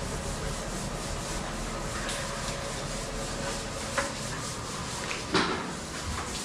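Steady rubbing of paint being applied to a wall, with a couple of light knocks about four and five and a half seconds in.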